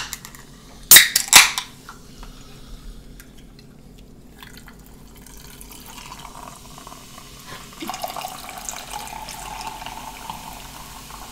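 Two aluminium cans of sparkling water cracked open with two sharp pops about a second in. Later the sparkling water is poured over ice into glass mugs, with a steady fizzing hiss that grows louder in the second half.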